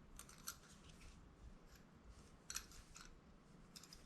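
Faint, light clicks of small carburetor parts being worked by hand while the needle adjuster is turned, in a few short clusters over near silence.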